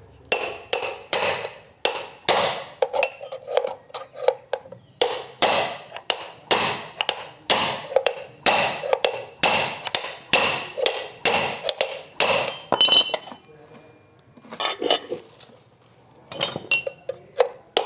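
Hammer blows on metal, about two a second, each with a short metallic ring, pausing briefly about two-thirds through and then resuming: a part of a scooter's CVT assembly being knocked loose.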